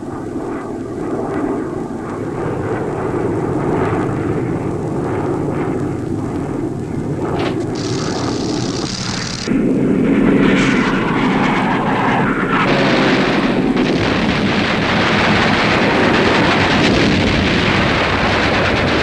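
Piston-engined propeller aircraft running steadily. About nine and a half seconds in, the sound suddenly grows louder and fuller and then holds.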